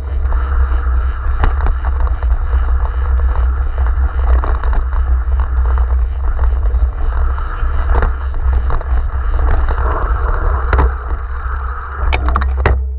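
Mountain bike descending rough dirt singletrack, heard through an action camera's microphone: a steady wind rumble on the microphone with tyre noise and scattered rattling clicks and knocks from the bike over bumps. The clicks come thicker near the end.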